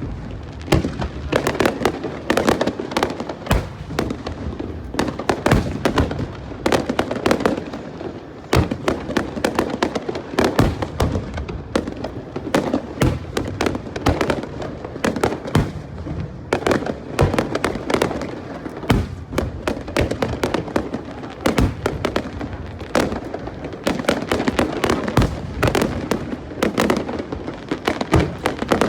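Aerial fireworks bursting in a dense, continuous barrage: many sharp bangs and crackles overlapping, several a second, with no break.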